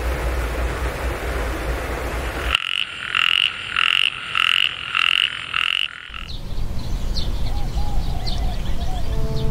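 Steady rain, then, about two and a half seconds in, a frog calling: a rhythmic series of croaks, roughly two a second, lasting about three seconds before it stops abruptly.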